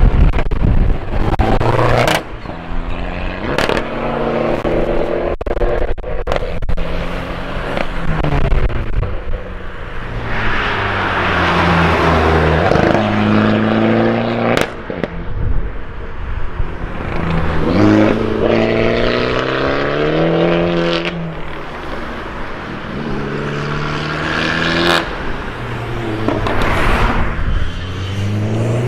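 Modified Fiat Abarth 595's turbocharged four-cylinder engine revving and accelerating through an aftermarket exhaust, its pitch rising and falling again and again. Sharp crackles and pops come from the exhaust several times as the revs drop.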